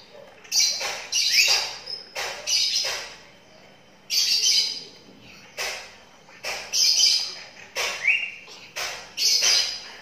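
Twelve-day-old lovebird chick calling: a run of about a dozen short, raspy calls, one or two a second, some ending in a brief rising note.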